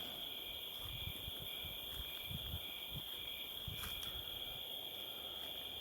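Crickets trilling in a steady, continuous high-pitched chorus, with irregular low rumbles on the phone's microphone in the first few seconds and a faint click about four seconds in.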